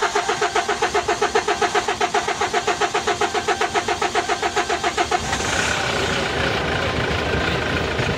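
Kia K2500 diesel engine cranked by its starter at a steady rhythm for about five seconds before it catches and runs, a slow, hard start.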